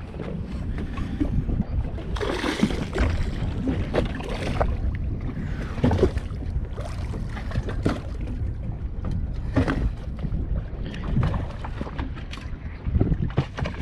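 Wind buffeting the microphone in a steady low rumble over water washing against a small boat's hull, with gusts swelling now and then and a few brief knocks.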